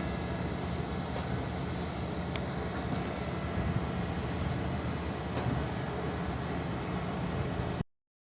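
Engine of a large harvest vehicle running steadily with a low hum, cutting off abruptly near the end.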